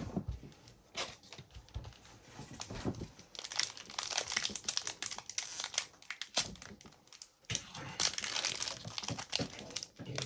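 Upper Deck hockey card pack wrapper being torn open and crinkled by hand. There are a few light handling clicks first, then two stretches of crinkling: one about three seconds in, the other about eight seconds in.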